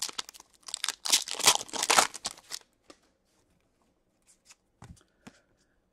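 Wrapper of a hockey card pack being torn open and crinkled for about two and a half seconds, then a few soft clicks as the cards are slid and handled.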